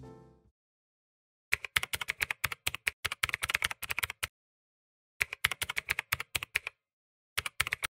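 Typing sound effect: rapid key clicks in three runs, a long run of nearly three seconds, a shorter one, and a brief one near the end, with dead silence between them.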